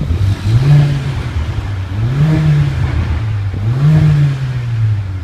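Mercedes-AMG A45's turbocharged four-cylinder engine revved three times, its pitch climbing and falling back each time, heard from inside the cabin.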